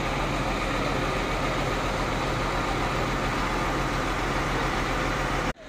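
Heavy diesel engine of a Renault crane truck idling steadily. It cuts off abruptly near the end.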